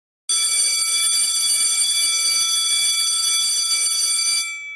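A loud, steady alarm tone, several pitches sounding together, holding for about four seconds and then fading out.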